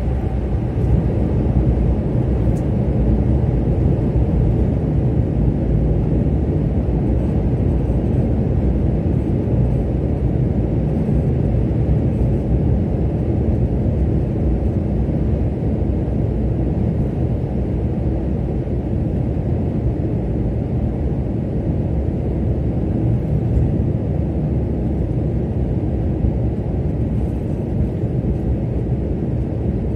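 Steady low rumble of a car driving through a road tunnel: tyre and engine noise, with no change in pace.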